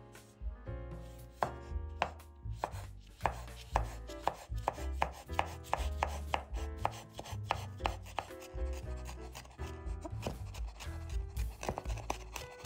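Chef's knife cutting a red chili pepper on a bamboo cutting board: a run of sharp knocks, a few each second, as the blade cuts through the pepper and strikes the wood.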